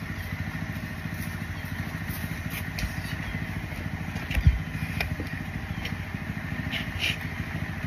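Small motorcycle engine running steadily with a low, fast, even pulsing. A single thump about halfway through.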